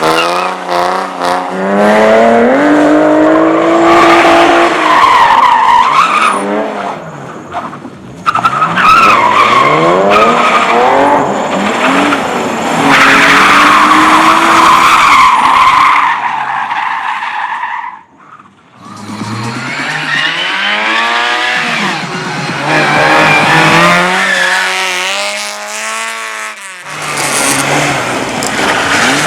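Drift cars on track: engines revving up and down through repeated hard slides, with long stretches of tyre squeal. The sound drops out briefly about two-thirds of the way through, then another run starts.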